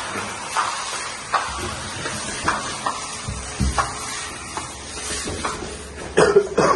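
A tall cardboard appliance box being shuffled and slid along a tiled floor: a scraping hiss with a string of light knocks, and two louder knocks close together near the end.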